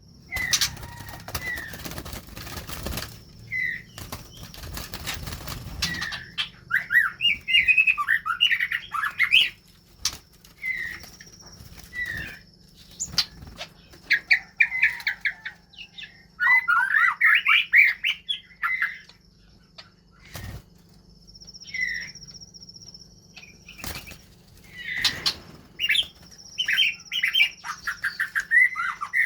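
White-rumped shamas flapping their wings for the first few seconds, then giving short whistled calls and quick bursts of song again and again, with a few sharp taps in between.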